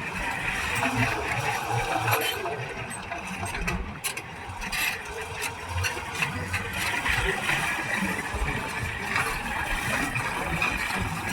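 Caterpillar D9N bulldozer's V8 diesel engine running steadily, with rattling and clatter from the machine.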